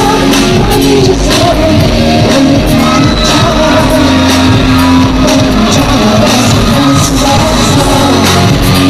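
Loud live pop music through a concert sound system: a male singer's vocals over a steady dance beat.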